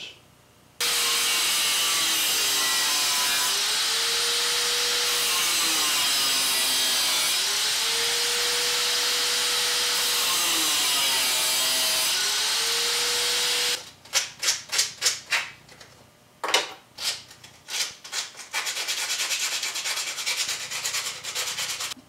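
Angle grinder with a cutoff wheel cutting through a small metal hinge. Its whine drops in pitch three times as the wheel bites in, then recovers. After about fourteen seconds the grinder stops, and a run of short, rough scraping strokes follows.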